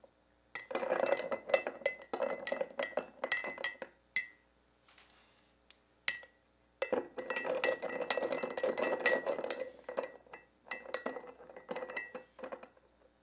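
Rapid clinking of a stirrer against the inside of a glass stein, mixing caustic soda into water, in two long bouts with a couple of single clinks between them.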